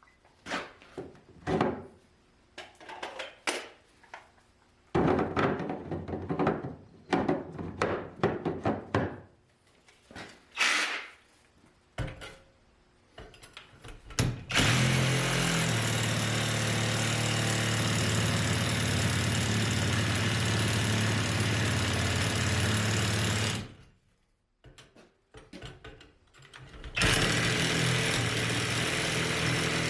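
Metalworking in a fabrication shop: scattered knocks and clatter of steel being handled, then a power tool running loudly and steadily with a low hum for about nine seconds, stopping, and starting again near the end.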